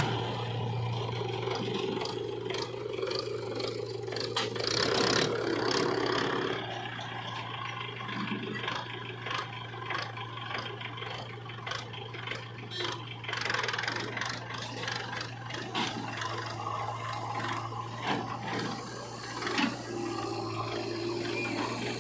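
JCB 3DX backhoe loader's diesel engine running steadily while the machine works mud, with repeated metal rattles, knocks and scraping.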